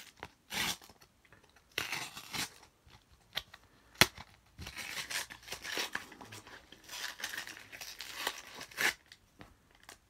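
A Yu-Gi-Oh booster pack's foil wrapper being torn open by hand, in short irregular rips with a single sharp crack about four seconds in, then the wrapper crinkling as it is pulled apart.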